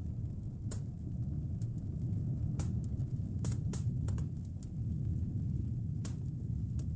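Wood fire crackling in a fireplace: irregular sharp pops and snaps, a few close together around the middle, over a steady low rumble.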